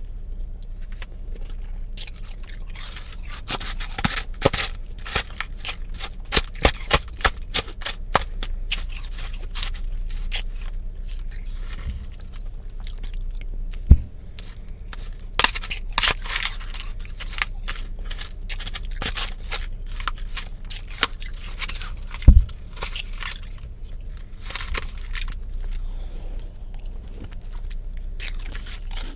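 Close-up chewing and crunching of powdery blended ice made from freezer frost: a dense run of crisp, crackling crunches, with two loud thumps, one about midway and one about two-thirds through.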